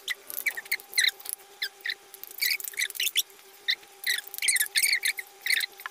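Quick run of short, high-pitched, clicky eating sounds, chewing and slurping of ramen noodles, over a faint steady hum.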